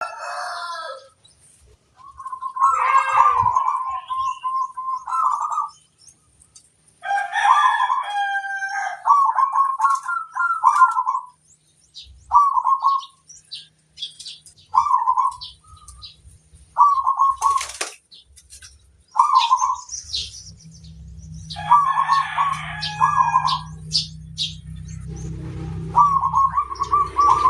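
Zebra doves (perkutut) cooing in phrases of quick rolling notes, with short single coos every second or so in between. Faint higher chirps of other birds are heard among them.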